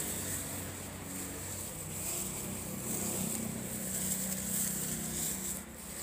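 Steady outdoor background: an even high hiss over a low, steady hum.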